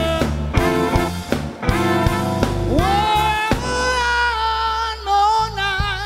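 Live soul band playing, with drums, bass and horns, and a male singer's voice; in the second half the singer holds a long note with vibrato.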